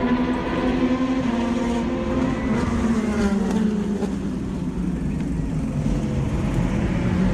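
Race car engines running at speed on a circuit, several engine notes overlapping. One engine note drops in pitch about three seconds in.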